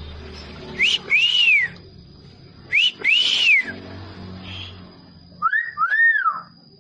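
A talking pet bird whistling three times. Each whistle is a short rising note followed by a longer note that rises and falls, and the third comes a little lower in pitch.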